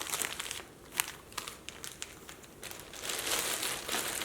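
Plastic meal-kit ingredient packaging crinkling as it is handled, with sharp separate crackles in the first second or so and denser, continuous crinkling from about three seconds in.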